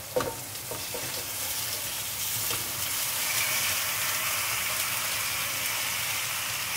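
Sizzling from a hot stainless steel pan of vegetables frying in olive oil as boiled penne is tipped in from a strainer. There are a couple of light knocks near the start, and the sizzle grows a little louder after about two seconds.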